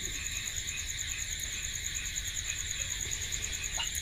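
Crickets chirping, a steady high trill of rapid, even pulses, over a low background rumble.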